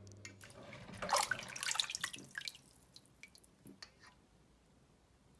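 Water splashing and dripping as soaked beans are washed and their loose skins drained off through a mesh sieve. A burst of splashing comes about a second in and lasts a second or so, then thins to scattered drips.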